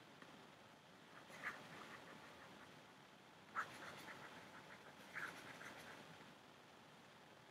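Faint tapping and scratching of a stylus writing on a pen tablet, in three short spells, each starting with a sharper tap.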